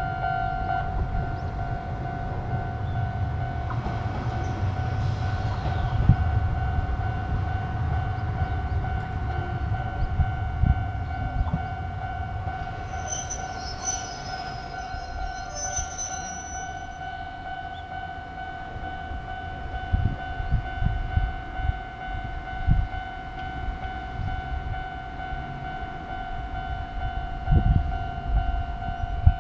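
Japanese railway level crossing's electronic warning bell ringing steadily, with a train rumbling past over the first half. Brief high squeals come about halfway through, and a few low thumps near the end.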